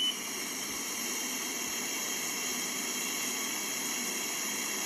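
A steady breath blown hard through the mouthpiece of a Sencor SCA BA50FC fuel-cell breathalyzer, an even airy hiss held for the whole test blow. The device gives a short high beep just as the blow begins.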